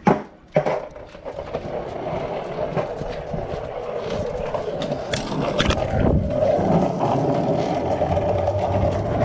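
Cruiser skateboard's wheels rolling on a concrete path, a steady rolling rumble, after two sharp knocks at the start.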